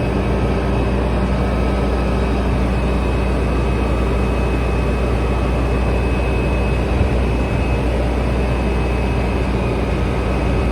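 A heavy engine running steadily at a constant speed, with a faint steady high whine above its low hum.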